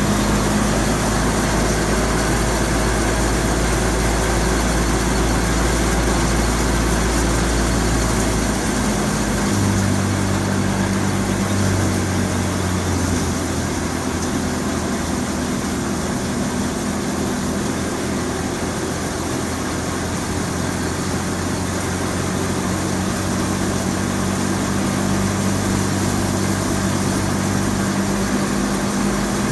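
Fiat 480 diesel tractor engine running steadily while driving a wheat thresher, with a dense, steady machine noise over the engine hum. The engine note shifts slightly a few times.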